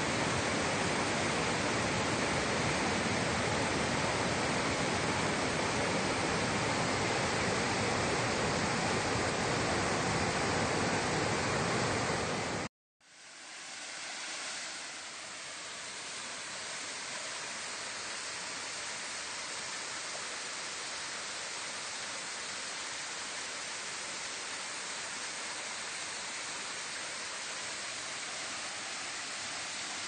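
Rushing water of a rocky stream, a steady full rush over boulders. About halfway through it cuts out for a moment and comes back quieter and thinner, as water spilling down a rock ledge.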